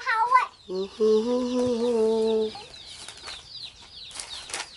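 Chickens calling: a short call at the start and a drawn-out cluck about a second in, followed by a run of quick, faint, high peeps.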